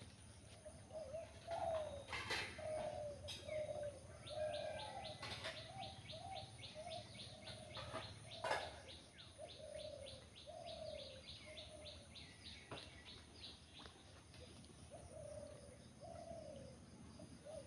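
Doves cooing in a long run of low, short notes, with another bird's fast, even chirping trill of about four notes a second running higher above them through the middle. Three brief sharp sounds cut through.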